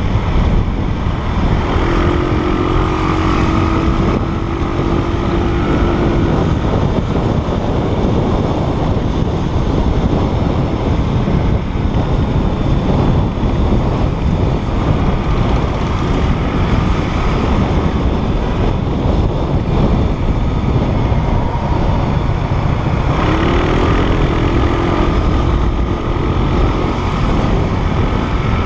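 Wind buffeting the microphone over the engine and road noise of a motorbike riding through traffic, steady throughout. A held pitched tone sounds for a few seconds twice, shortly after the start and again near the end.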